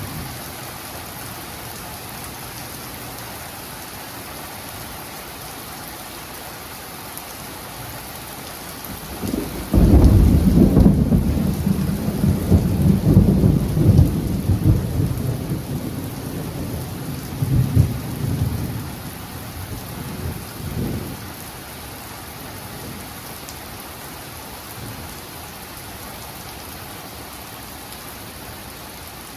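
Steady heavy rain with a loud thunderclap about ten seconds in: a sudden crack that turns into a rolling rumble for about ten seconds before fading back into the rain. It is close cloud-to-ground lightning.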